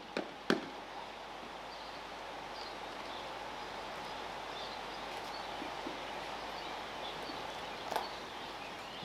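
Outdoor ambience: a steady background hiss with faint, scattered bird chirps, and a few short knocks near the start and once near the end.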